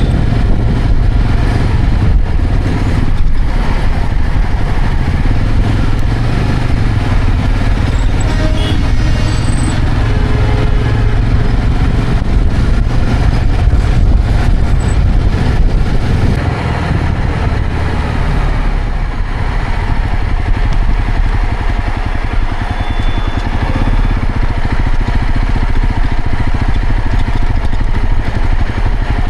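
Motorcycle running on the road with a steady, loud rumble and rushing noise, easing off somewhat about halfway through.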